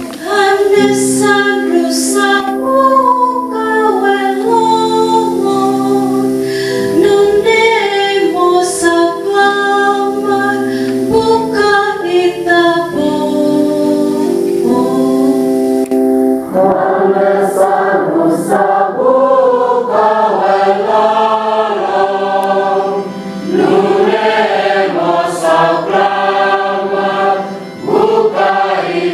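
Responsorial psalm: a solo female cantor sings the verse over sustained held chords, then about two-thirds of the way through a mixed church choir comes in with the sung response.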